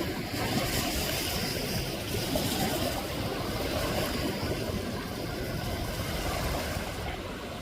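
Steady noise of wind and waves at a beach, with wind buffeting the microphone.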